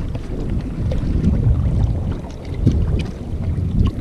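Wind buffeting the microphone: a steady, gusting low rumble, with a few faint clicks.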